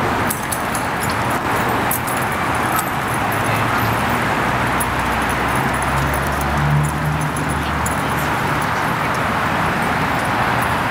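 Steady city traffic noise, with a heavier low vehicle rumble swelling about six to eight seconds in.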